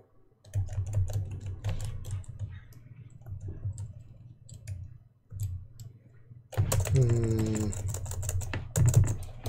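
Typing on a computer keyboard: runs of quick key clicks as editor key combinations are entered, densest and loudest in the last few seconds. A brief hummed voice sound comes about seven seconds in.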